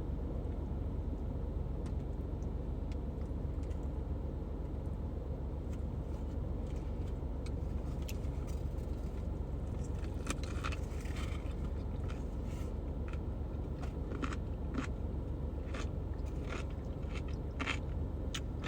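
Biting and chewing a Jimmy John's Picklewich, a sandwich wrapped in a whole pickle with lettuce, with many short crunches, most of them in the second half. A steady low rumble of the car runs underneath.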